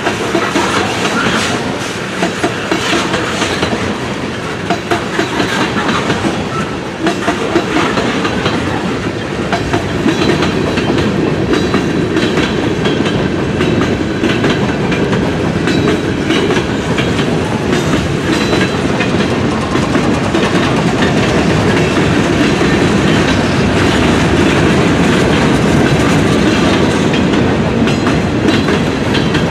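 Loud, continuous noise of railroad cars rolling past, wheels clicking over the rail joints, with the clicks most frequent in the first several seconds and the sound steadier after that.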